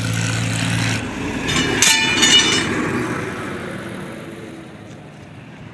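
A road vehicle going past: an engine hum, then a loud passage with a brief high metallic squeal about two seconds in, fading away.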